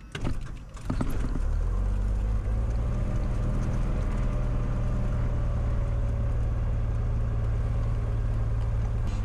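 Cessna 182's six-cylinder piston engine being started: the starter cranks it for about a second, then it catches and settles into a steady idle.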